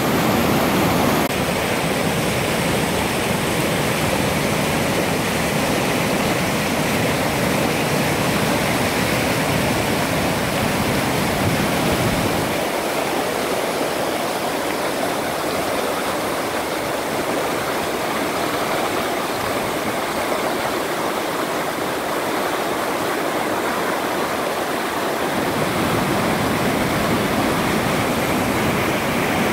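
Mountain river in spate, swollen with snowmelt, rushing white over rocks in a steady wash of water noise. The deep rumble drops away about twelve seconds in and comes back near the end.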